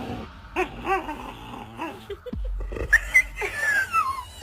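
A dog vocalizing in a string of short whining, grumbling calls, then one long whine that falls in pitch near the end.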